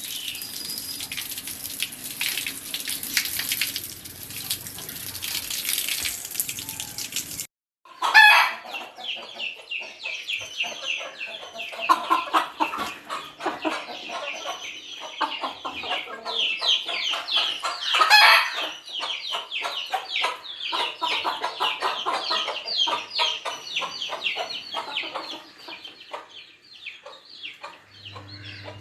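A short stretch of steady hiss. After a brief cut it gives way to a flock of chickens clucking and calling in a dense, rapid chatter, with two louder calls, one just after the cut and one about ten seconds later.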